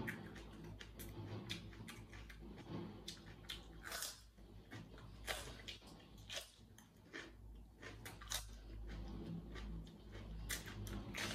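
Red bell pepper being bitten and chewed close to the microphone: irregular crisp crunches with wet mouth sounds.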